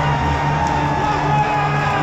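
Loud music with a steady, pulsing beat playing in a packed football stadium, over the noise of the crowd with scattered whoops.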